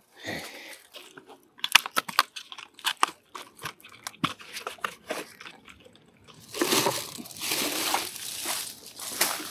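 Plastic litter and a rubbish bag being handled during litter picking: a run of sharp crunches and clicks, then a longer crinkling rustle in the second half.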